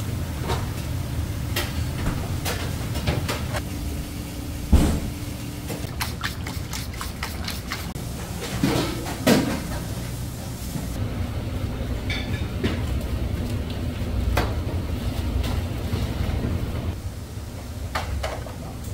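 Commercial kitchen noise: a steady low hum under scattered clicks, taps and knocks of utensils, with a loud knock about five seconds in and two more around nine seconds.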